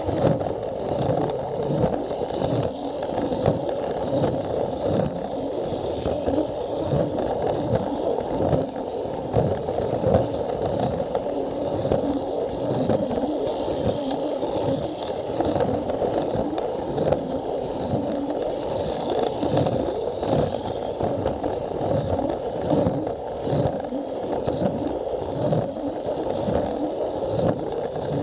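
Plarail toy train running on plastic track: its small battery motor and gears whirr steadily, while the plastic wheels rattle and give a regular clack over the rail joints.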